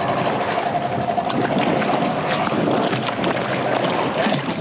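A hooked jack crevalle splashing and thrashing at the surface beside a kayak, many short splashes over steady wind and water noise.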